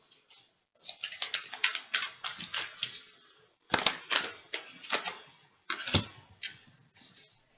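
Tarot cards being shuffled and pulled by hand: runs of quick, crisp snaps and flicks in several bursts with short pauses between.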